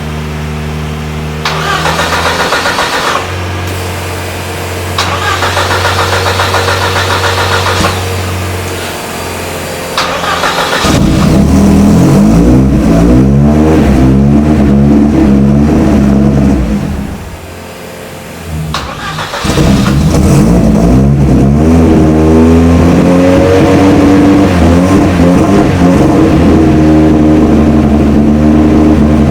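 Ford Escort RS Cosworth's turbocharged four-cylinder being cold-started on a jump pack: the starter cranks it twice before it fires about ten seconds in and runs at an uneven, wavering fast idle. About halfway through it dies, is cranked again and catches, running loudly once more.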